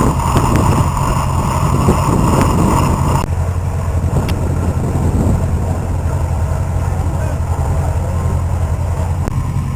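An engine running steadily with a low, even hum. The background noise above it changes abruptly about three seconds in.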